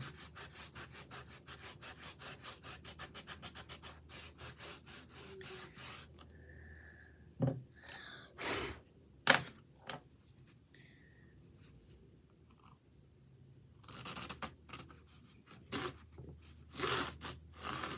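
Rapid back-and-forth rubbing strokes on a drawing canvas, about seven a second, slowing and stopping about six seconds in. After that come a few separate scrapes and knocks, the sharpest about nine seconds in, with another cluster of strokes near the end.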